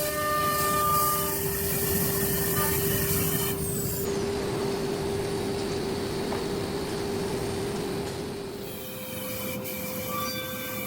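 CNC arc forming machine running, a steady motor whine with metal rolling and rubbing through its bending rollers. There is a noisier rushing stretch in the middle, and the whine steps up in pitch near the end.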